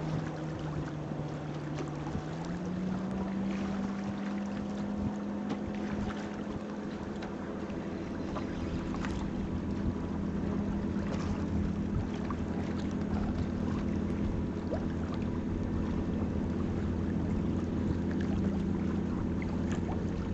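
Boat engine running steadily, its hum stepping up in pitch about two seconds in as it speeds up, then holding, with wind and water noise around it.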